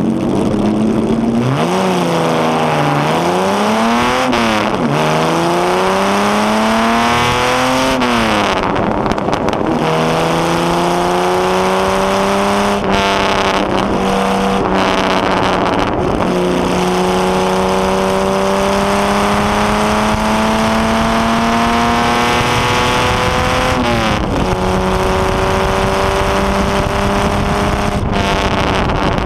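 Jaguar straight-six engine of the HW Alta-Jaguar vintage racing car, heard loud from its open cockpit, accelerating hard through the gears. The pitch climbs and falls back at each upshift in the first few seconds, then rises slowly in long pulls at high revs. It dips briefly once, near the end.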